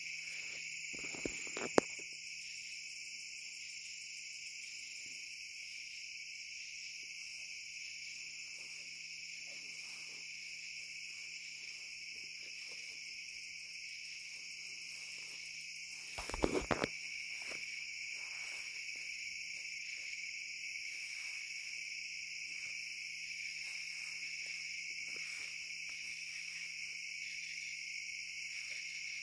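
Night chorus of crickets: a steady high trilling with an even pulsing beat. A couple of sharp knocks come nearly two seconds in, and a short cluster of knocks a little past halfway.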